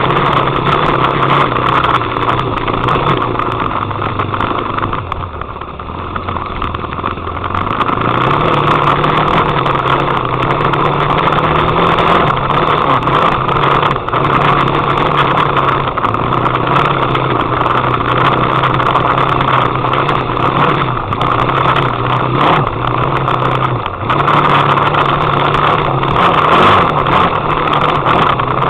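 Off-road vehicle engine running steadily while riding a trail. About five seconds in the engine eases off, its note dropping lower and quieter for a few seconds, then it picks back up.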